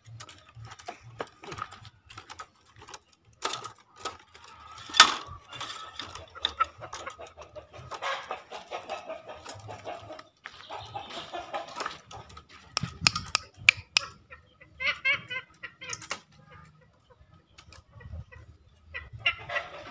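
Green junglefowl clucking in short runs of rapid notes, mostly later on, among scattered clicks and rustles.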